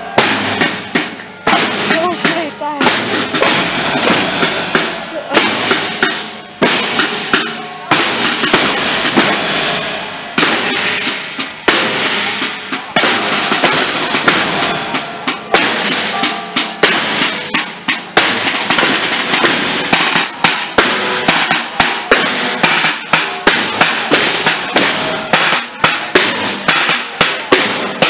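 Marching snare drums of a scout drum corps beating a steady marching rhythm while the drummers walk.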